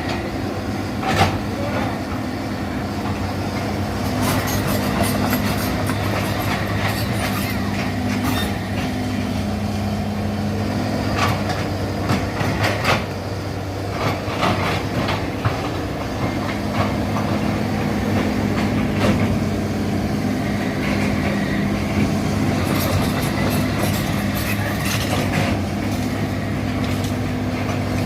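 Excavator's diesel engine running steadily under working load, its note strengthening and easing in stretches, with scattered sharp metal clanks and knocks.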